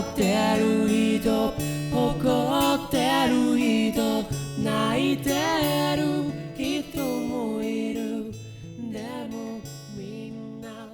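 Background pop song with strummed acoustic guitar and a wavering melody line over a steady bass, fading out over the last few seconds.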